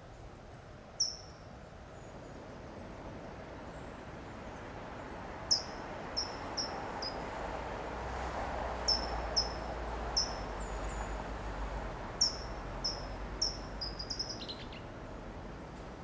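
California towhee giving its short, sharp, high "tsip" calls, about a dozen spaced irregularly, some in quick runs of two or three and a fast string near the end.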